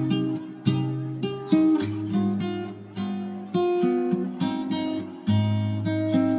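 Background music on acoustic guitar: chords struck about once a second, each ringing out and fading before the next.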